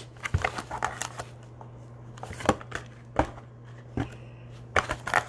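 Scattered taps and clicks of cardboard trading-card packaging being handled and opened, about once a second and busier near the end, over a low steady hum.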